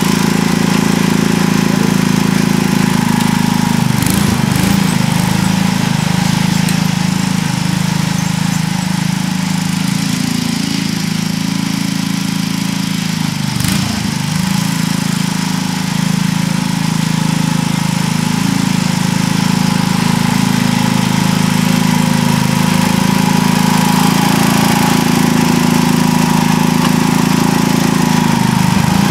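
Sears ST16 garden tractor engine running steadily under load while pulling a plow through garden soil. Its pitch dips briefly twice, about four seconds in and again near the middle, then recovers.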